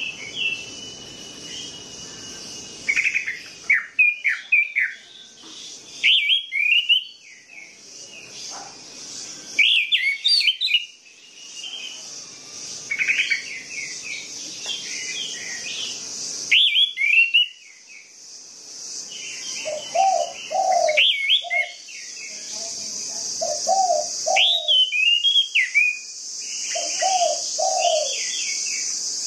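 Orange-headed thrush singing in short bursts of rapid, varied whistled notes with pauses between them, over a steady high-pitched hiss.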